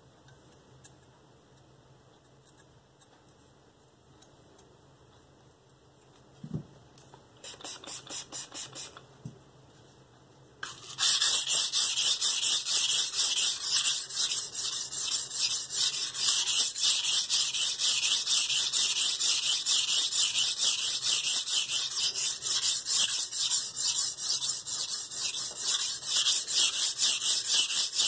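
Steel blade of a KitchenAid santoku knife stroked rapidly back and forth on a wet Shapton Pro 320-grit whetstone, making a rhythmic, gritty scraping. After a quiet stretch, a soft knock and a short first run of strokes, the scraping starts in earnest about eleven seconds in and keeps up at an even pace.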